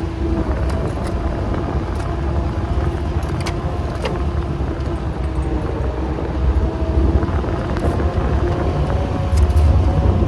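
Vehicle engine running steadily while driving, a low rumble with a steady engine hum that rises slightly in pitch past the middle, and a few light clicks or knocks.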